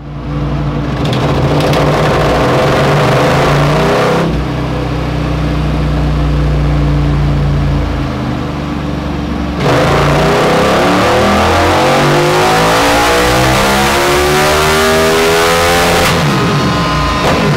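KTM 1290 Super Duke R's V-twin engine running on a dynamometer roller through an Akrapovic full exhaust. It holds steady revs, then steadier lower revs, then about ten seconds in goes to a full-throttle pull that rises in pitch for about six seconds. Near the end the throttle closes and the revs fall.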